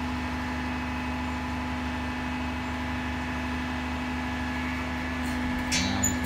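Roll-off truck's diesel engine running steadily with its PTO-driven hydraulic cable hoist working as the hoist is lowered under a loaded dumpster: a steady hum with a constant whine. A short clatter near the end.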